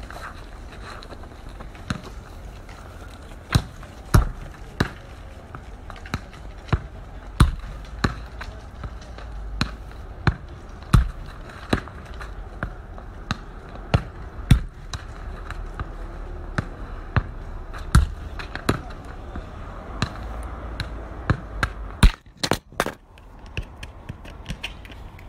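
Football bouncing on paved ground: a sharp, irregular thud about once a second. Near the end there is a quick cluster of knocks.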